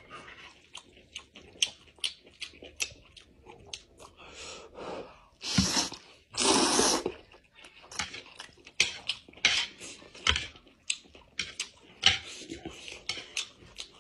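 Close-miked eating of thick fried noodles: wet chewing and lip-smacking clicks all through, with two loud slurps of noodles near the middle.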